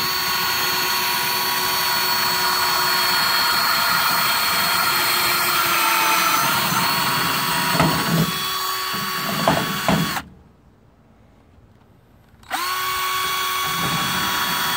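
Electric drill with a larger bit running steadily as it drills out the pop rivets of a truck box latch, with a few clunks near the end of the first run. It stops after about ten seconds, then starts again a couple of seconds later for a short second run that cuts off suddenly.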